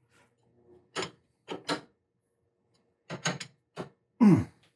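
Short, sharp metallic clicks and knocks of a chuck key working the jaw screws of a six-jaw adjustable lathe chuck as the jaws are tightened. The knocks come singly and in pairs, then in a quick cluster about three seconds in.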